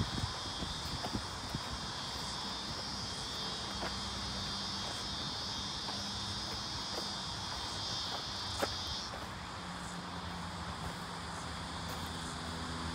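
Insects calling in one steady high-pitched chorus that cuts off sharply about nine seconds in. Footsteps on the dirt track tick faintly underneath, and a low distant hum comes in during the second half.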